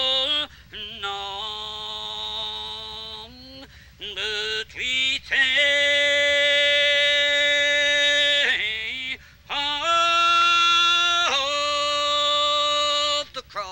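Slow unaccompanied hymn singing: long held notes that slide up or down into the next pitch, in drawn-out phrases broken by short pauses for breath.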